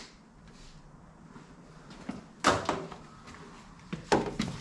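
Two short clunks, about two and a half and four seconds in, from a cordless drill and metal wiper-assembly parts being handled under the hood. Between them it is quiet.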